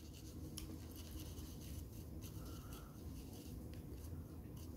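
Small paintbrush dabbing and scrubbing paint into the edges of primed MDF letters: a faint, soft scratching of bristles on the board.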